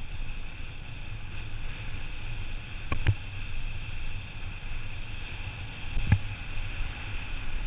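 Wind rushing over a bike-mounted camera's microphone and the low rumble of a road bike rolling fast downhill on asphalt, with two sharp knocks, about three seconds in and about six seconds in.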